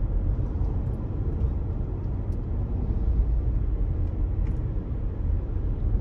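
Steady low rumble of a car driving along a road in moving traffic: engine and tyre noise heard from inside the car.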